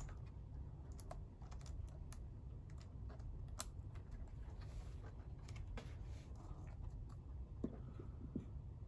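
Faint, irregular clicks and light rattles of a Lenovo ThinkPad T60 laptop keyboard's keys pressed under the fingers, with one sharper click right at the start.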